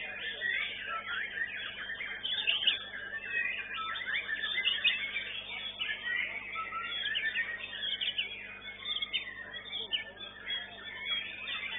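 White-rumped shama (murai batu) singing without a break: a rapid, varied run of clear whistles and quick rising and falling trills.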